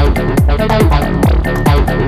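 Progressive psytrance at 140 BPM: a kick drum on every beat, each with a quickly falling pitch, over a dense synth bed, with short high ticks between the kicks.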